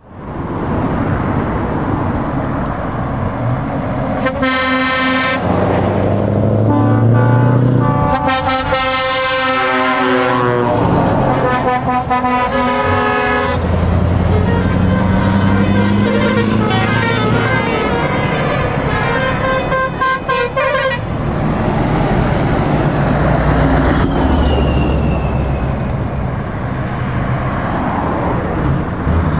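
Truck air horns sounding over diesel truck engines and passing traffic: a short blast about four seconds in, then long runs of blasts that step between several pitches, ending about two-thirds of the way through.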